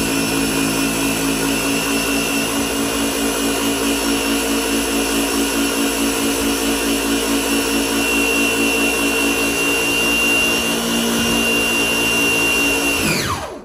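Small electric pressure washer running steadily under load as water sprays from the gun onto concrete. Near the end its pitch falls and it winds down to a stop, the built-in auto stop shutting the motor off when the trigger is released.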